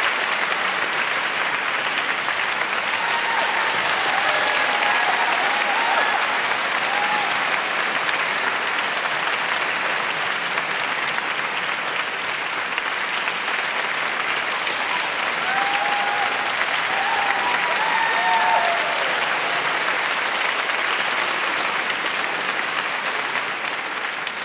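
Large audience applauding steadily, sustained clapping throughout.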